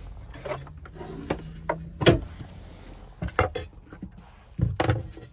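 Kitchen utensils being handled and knocked against a wooden cutting board: a string of separate sharp knocks and clicks, the loudest about two seconds in, over a faint low steady hum.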